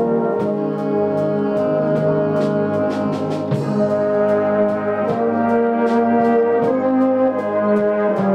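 A fanfare band of saxophones, trombones, tubas and other brass plays a piece in sustained chords that change every second or so. Percussion strikes keep a steady beat.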